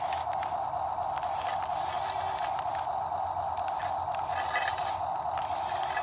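Steady whir of a remote-control toy wheel loader's small electric motors as it drives and pushes snow, with a few light clicks.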